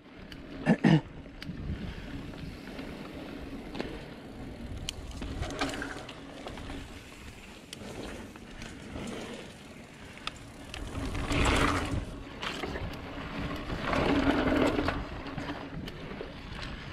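Mountain bike rolling along a dirt trail: a steady rush of tyre and riding noise with the bike rattling over bumps. There is a short sharp sound about a second in, and two louder rough stretches in the second half.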